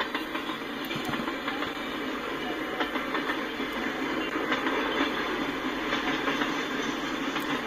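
Freight cars rolling past at speed: a steady rumble of steel wheels on rail with occasional sharp clacks.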